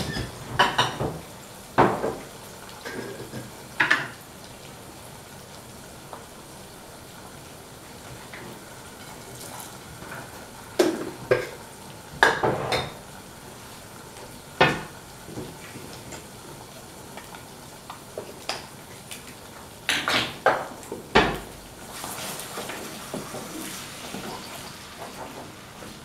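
Kitchen clatter: about a dozen separate knocks and clinks of dishes, utensils and a frying pan at irregular intervals, with a stretch of scraping near the end as a wooden spoon stirs egg in the pan.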